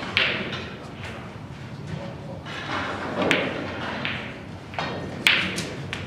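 Snooker cue tip striking the cue ball, then sharp clicks of ball on ball about three and five seconds in, the last the loudest, as the shot pots a red and the cue ball runs on into the blue. Low chatter echoes in the hall behind.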